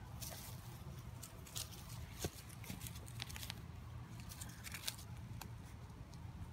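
Leafy ground cover rustling and crackling as a Jack Russell puppy scrambles through it while being rubbed and played with by hand, with a few sharp clicks scattered through.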